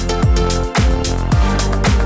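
Electronic dance music with a deep kick drum on every beat, a little under two beats a second, and crisp hi-hats between the kicks.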